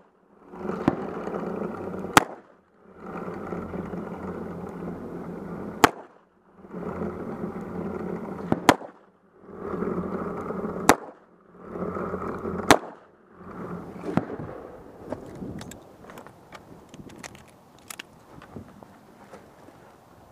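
Revolver shots, five loud reports about two to three seconds apart, over a steady rushing noise that dips briefly after each shot. After the last shot only faint small clicks and ticks follow.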